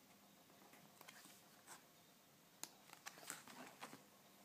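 Near silence, with faint rustles and small ticks of a paperback picture book being handled as its cover is opened to the first page.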